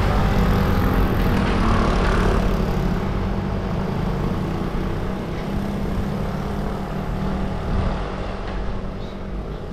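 Wind and road noise on a handlebar-mounted action camera as a road bike is ridden: a loud, steady low rumble with hiss above it that slowly fades.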